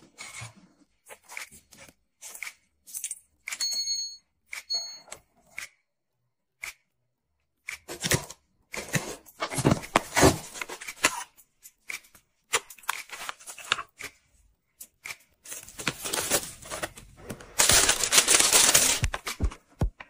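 A run of close-miked household handling sounds: short taps and rustles, then two short high beeps about four seconds in. About halfway, a metal ice-cream scoop scrapes through a tub of firm ice cream. Near the end comes a longer loud stretch of rustling or tearing.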